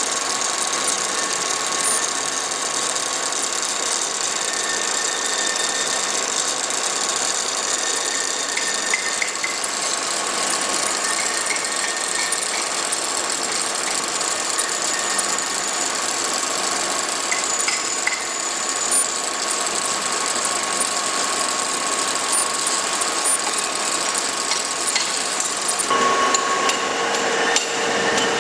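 Metalworking machinery running steadily, a dense mechanical clatter with a faint steady tone; the sound changes character near the end.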